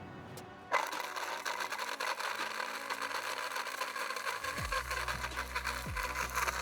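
OMC B8M8 bait grinder crushing boilies: a dense, grainy crunching and grating that starts suddenly about a second in. Music with a low bass beat comes in past the middle.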